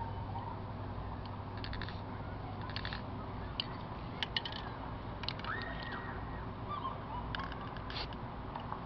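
Spray paint can being handled, its mixing ball rattling in short clusters of clicks every second or so over a steady low hum. A short, steady high tone sounds for about half a second a little past the middle.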